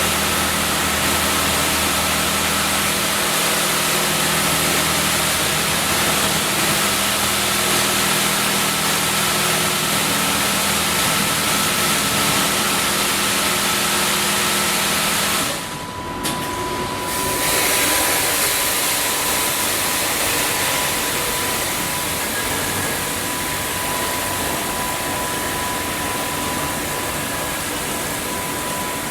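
Automatic car wash machine running: a steady mechanical hum under a broad hiss. It breaks off briefly about halfway through, then goes on with a thin steady whine.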